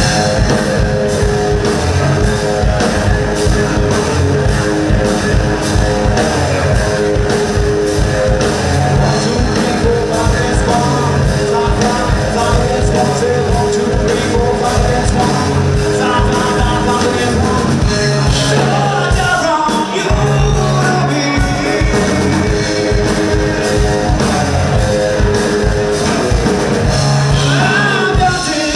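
Live rock band playing loudly: two electric guitars, electric bass and a drum kit keeping a steady beat, with a lead vocalist singing over them.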